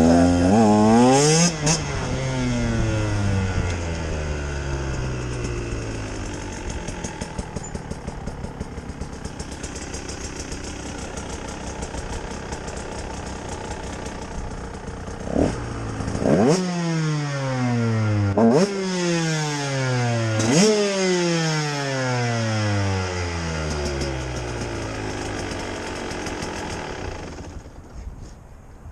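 Two-stroke single of a 2018 Husqvarna TE 150 enduro motorcycle revving and then winding down slowly. In the second half there are three quick throttle blips about two seconds apart, each letting the revs fall slowly. It fades out near the end.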